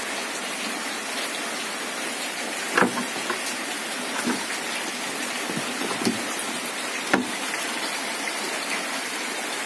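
Steady rushing, hissing noise like running water, with a few sharp clicks and knocks, the two loudest about three seconds in and again about seven seconds in.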